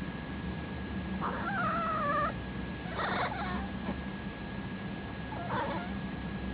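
Domestic cat making odd, wavering vocal calls: one long drawn-out call, then a shorter one, then a brief one near the end.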